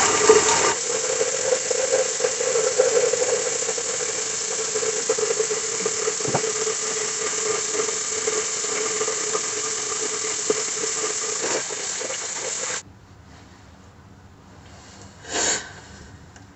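Tap water running steadily into a sink with a steady whine in it while a face is washed; the tap shuts off abruptly about thirteen seconds in. A short rustle of a towel follows near the end.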